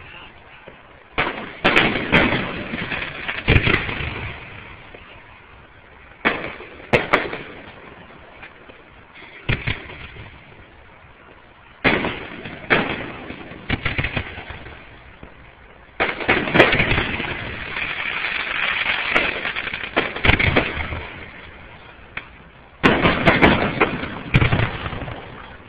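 Aerial fireworks shells bursting in an irregular series of bangs, each followed by a short rumbling tail, with quieter gaps of a few seconds between volleys and a denser run of bangs in the last third.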